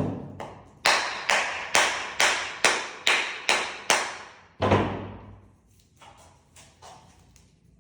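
A glued tile corner being struck in a strength test: eight sharp, ringing knocks about two a second, then a heavier thud, then a few faint knocks near the end.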